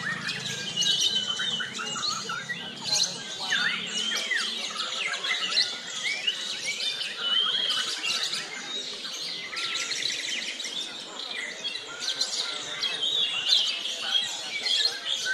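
Several white-rumped shamas singing at once, a dense overlapping tangle of whistles, glides and rapid chirps.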